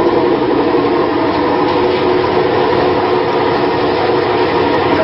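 A machine running with a steady, unbroken drone and hum.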